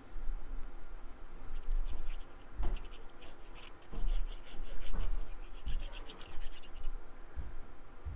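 Hands rubbing and pressing on cardstock, a quick run of scratchy strokes from about two to seven seconds in, with a few soft knocks.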